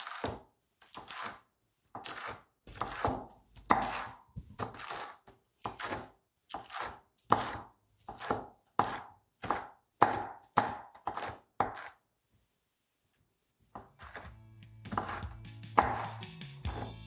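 Chef's knife chopping crispy fried chicken skin on a wooden cutting board: a run of crunchy cuts about two a second that stops about twelve seconds in. Background music then comes in, with a few more chops over it near the end.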